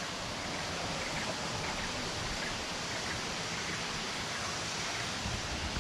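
Steady rush of a jungle waterfall cascading into a pool.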